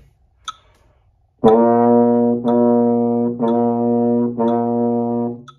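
Euphonium playing four tongued notes on the same low pitch, one count each with short breaks between, to a metronome ticking about once a second. Each note is started with the tongue on a "ta" articulation.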